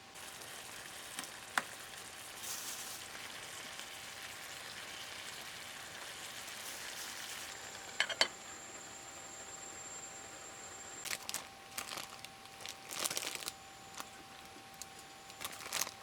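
Food sizzling in a pan over a camp stove, a steady hiss that stops about halfway through. This is followed by scattered clicks and knocks of cookware being handled.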